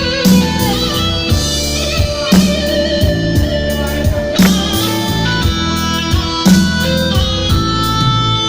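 Instrumental interlude of a song's backing music: held melodic notes over a steady beat with a strong accent about once a second.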